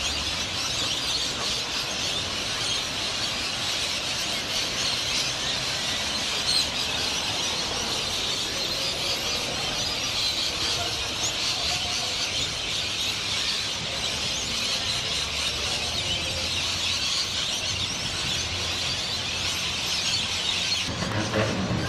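Dense, continuous chatter of a large flock of birds calling over one another, cutting off suddenly near the end.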